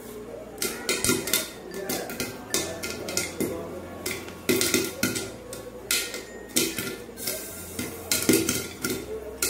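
Popcorn kernels popping inside an aluminium pressure cooker covered by its upturned lid on a low gas flame, each pop a sharp tick against the metal. The pops come irregularly, several a second, sometimes in quick clusters.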